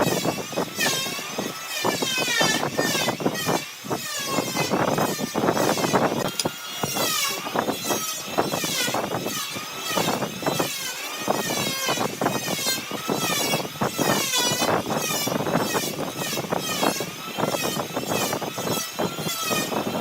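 Wood lathe spinning a glued-up wooden blank while a turning tool cuts it: a continuous rasping with a high whine that wavers up and down in pitch as the tool moves over the wood.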